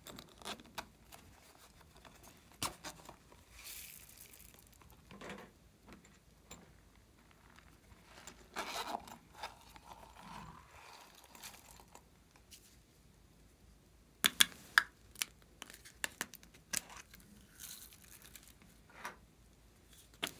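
Hands handling small plastic cases and a squeeze tube: scattered clicks, taps and crinkly rustles, with a cluster of sharp clicks a little past the middle.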